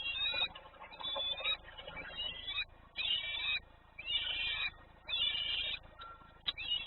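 A bird calling over and over, one call about every second, each lasting around half a second.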